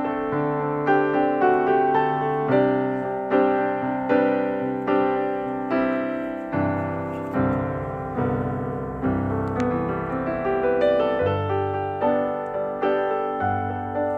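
Background music: a piano playing an even, gentle melody, with a new note or chord about twice a second.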